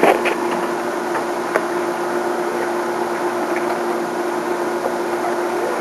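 A steady mechanical hum with a constant low tone, with a few short clicks near the start and one more about a second and a half in.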